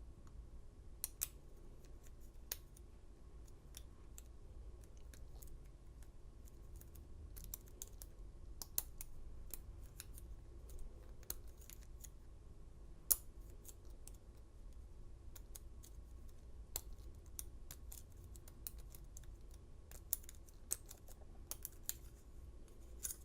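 Faint, irregular metallic clicks and scrapes of a lock pick and tension wrench working the pins inside an American Lock 700 padlock's cylinder, with one sharper click about halfway through.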